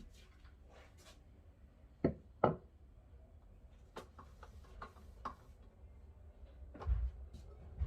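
Scattered knocks and clicks, with two louder knocks about two seconds in and a dull thump near the end.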